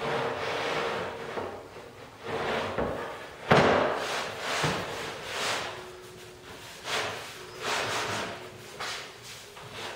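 MDF sled base being slid and pivoted across a metal table saw top: repeated scraping swishes of board on metal, with one sharp knock about three and a half seconds in.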